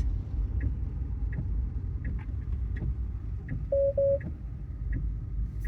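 Tesla turn signal ticking steadily, about one click every 0.7 s, over the low rumble of the cabin and road noise as the car pulls toward a destination on the right. Two short beeps sound back to back a little past halfway.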